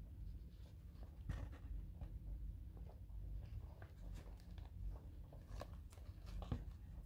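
Faint handling noise: soft rustling with small scattered taps and clicks, over a low steady hum, as the baby rabbits are handled during their health check.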